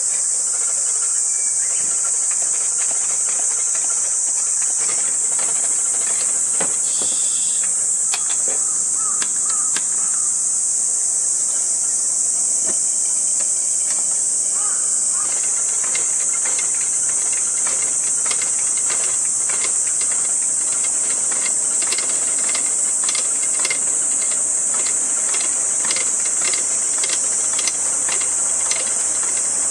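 Steady, high-pitched insect chorus. About halfway through, a Coleman gasoline pressure lantern is lit after pumping. Its burner then adds a rough hiss with irregular small pops and sputters as it warms up.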